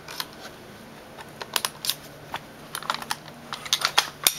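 Scattered small sharp clicks and taps of a tiny Allen wrench working the side pins out through the body of an airsoft gun, the loudest few coming near the end.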